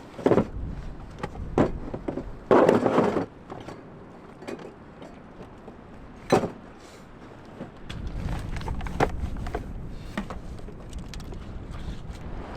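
A few scattered knocks and scrapes, the loudest a noisy burst about two and a half seconds in and a sharp knock about six seconds in. From about eight seconds in, strong wind buffets the microphone with a steady low rumble.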